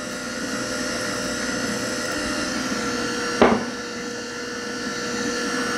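Nama slow juicer's motor running steadily in blend mode, a hum with several steady tones, churning soaked almonds and water into almond milk. A brief louder noise about three and a half seconds in.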